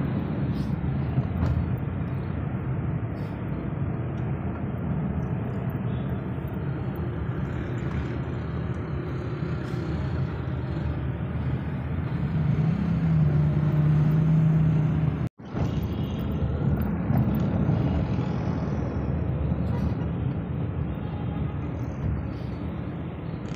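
Steady road and engine rumble of a car driving through city traffic, heard from inside the cabin, with a steady low hum for a couple of seconds just past the middle. The sound breaks off abruptly about two-thirds of the way through, and similar street traffic noise follows.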